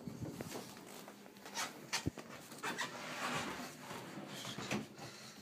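A few irregular soft knocks and rustling from a handheld phone camera being carried while walking, the strongest knock about two seconds in.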